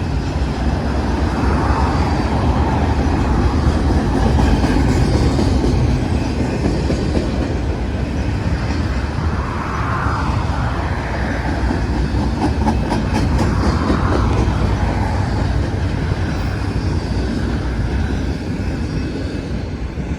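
Double-stack container freight train rolling past in a steady, loud rumble of wheels on rail, with a cluster of wheel clicks a little past the middle.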